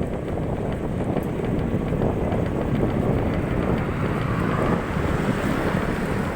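Wind buffeting the microphone over a steady low rumble, as from a bike in motion.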